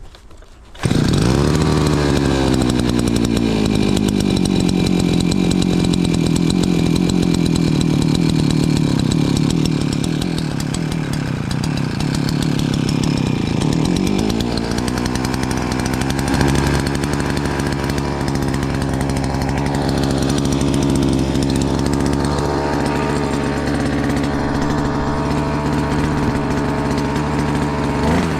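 Shindaiwa 280TS top-handle two-stroke chainsaw running, coming in suddenly about a second in. Its engine speed sags and wavers for several seconds, rises near the middle, then holds steady.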